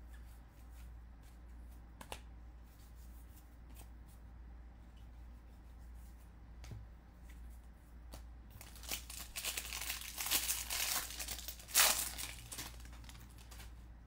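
A baseball card pack's wrapper being torn open and crinkled, a rustling crackle lasting about five seconds from a little past the middle. Before it, only a few faint clicks of cards being handled.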